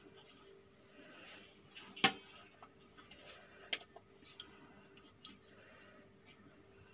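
Light handling over a pizza pan while capsicum pieces are set on the pizza: a few short, sharp clicks and ticks, the loudest about two seconds in, over a faint steady hum.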